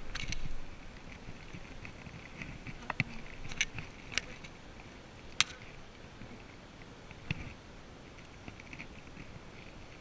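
Honeybees buzzing around an open hive, with several sharp clicks and knocks of a metal hive tool against the wooden box and frames.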